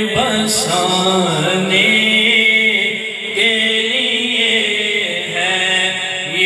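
Male voice chanting a Naat, an Urdu devotional poem in praise of the Prophet, in long phrases that bend up and down in pitch over a steady held low note.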